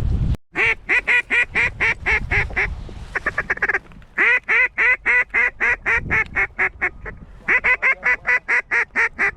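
Goose calls blown by hunters: fast, evenly spaced honks and clucks, about four a second, in three long runs with short breaks between them, calling to geese in the air.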